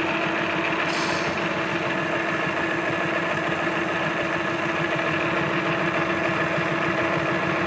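Grain grinder running steadily with grain in it, a constant machine hum over a rough grinding rattle as the grain takes a while to work through. A brief hiss about a second in.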